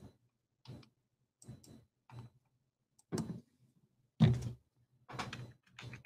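Irregular clicks and knocks, roughly one a second, the loudest a little after four seconds in.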